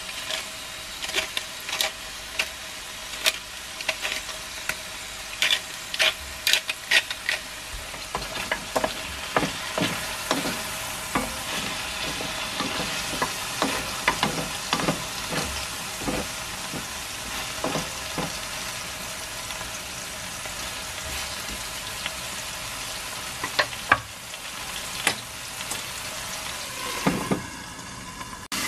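Chicken pieces sizzling in oil in a stone-coated wok, with a wooden spoon scraping and knocking against the pan as they are stirred. Near the end a glass lid goes on and the sizzle turns muffled.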